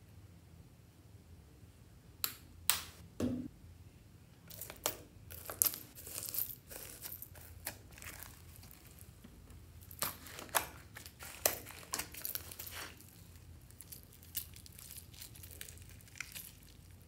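Hands mixing and kneading white slime full of foam cubes, tinsel and beads in a glass dish: irregular sticky crackles and clicks, starting about two seconds in and thinning out near the end.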